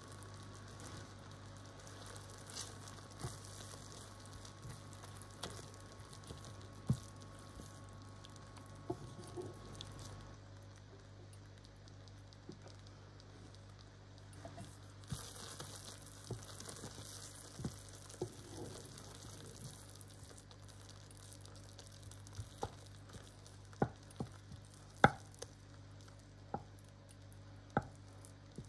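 Cream sauce simmering in a frying pan, with a soft sizzle and scattered small pops. Near the end a spatula stirs through it with a few sharper clicks against the pan.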